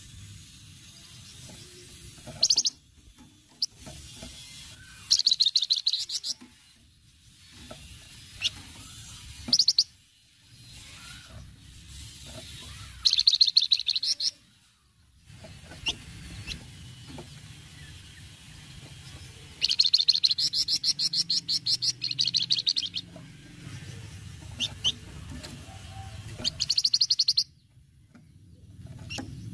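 Flamboyan songbird giving its 'cretetan' call: short, high, very fast chattering trills, each about a second long, repeated every few seconds, with a longer run of trills in the second half.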